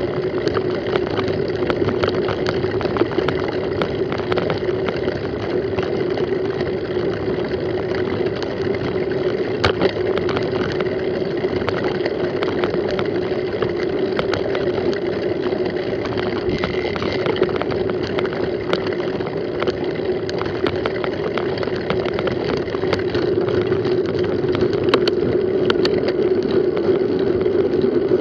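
Wind rushing over a bike-mounted action camera, heard as a steady noise with a constant hum, while the mountain bike rattles and knocks with many small clicks over a rough grass track.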